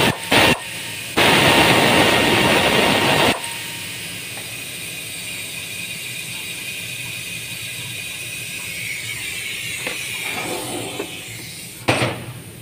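Air ratchet running on a turbocharger mounting bolt in loud bursts, a short one and then one of about two seconds, early on. After that only a faint steady background, then a single sharp knock near the end.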